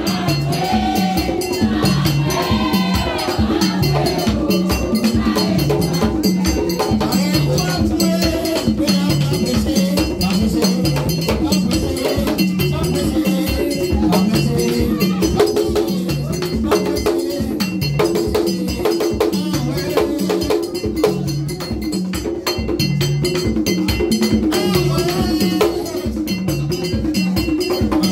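Haitian Vodou ceremonial music: drumming with bell and rattle percussion keeping a fast, steady rhythm. A voice sings over it in the first few seconds.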